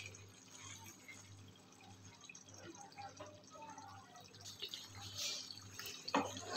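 Chicken korma masala sizzling and bubbling faintly as it fries in a nonstick pan. A wooden spatula knocks against the pan about six seconds in, and louder stirring follows.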